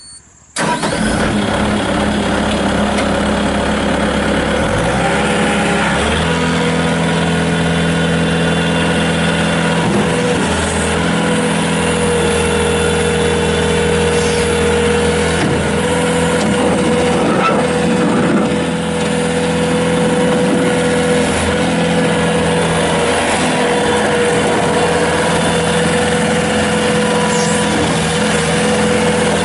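Kubota V3300-T turbo diesel engine of a 2007 Bobcat S300 skid steer loader firing up about half a second in and running steadily. A little after five seconds the engine note rises to a higher, steady speed.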